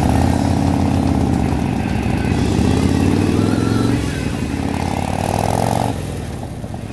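Harley-Davidson V-twin motorcycle engine pulling away from a standstill and accelerating, the revs rising twice as it goes up through the gears, then easing off near the end. Muffled, as recorded from a phone in the rider's backpack.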